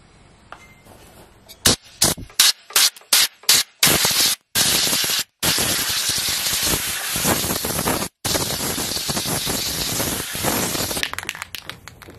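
Spray hissing from a hand-held nozzle aimed at the tractor's radiator core: about six short bursts, then long continuous spraying, cut off abruptly a few times, ending in light clicks.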